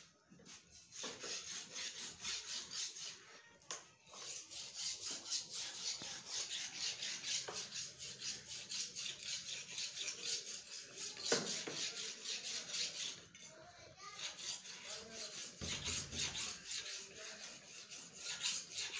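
A steel blade being sharpened on a sharpening stone: quick, even back-and-forth scraping strokes that keep on with short breaks about 4 s in and about 13 s in.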